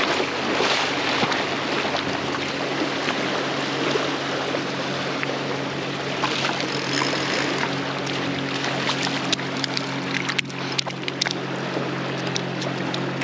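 Shallow river water rushing over a gravel bed, with a motorboat's engine running steadily as a low hum from about two seconds in. A few sharp clicks near the end as the spinning reel is handled.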